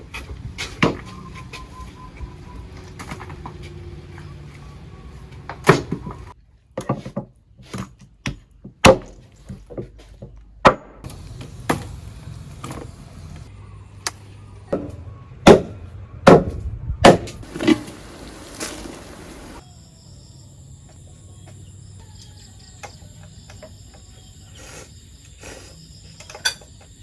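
Chopping: a series of sharp, irregularly spaced strikes, a few of them much louder than the rest, with a short hiss about eighteen seconds in. After that come quieter, steady high-pitched tones with a few light knocks.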